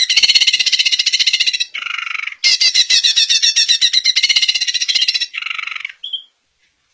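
Cucak ijo (green leafbird) singing: long, fast rattling trills of rapidly repeated high notes, broken twice by a short, lower, harsher call. The song stops about half a second before the end.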